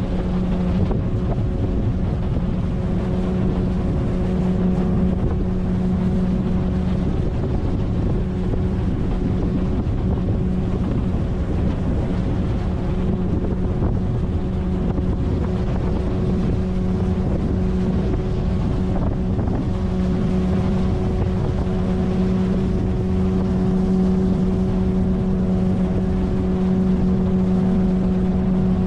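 9.8 hp outboard motor on an inflatable boat running steadily at cruising speed, a constant engine hum, with wind buffeting the microphone.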